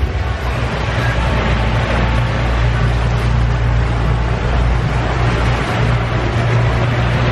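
Tour boat's engine running steadily with a low drone while under way, over the even rush of water churned up in its wake.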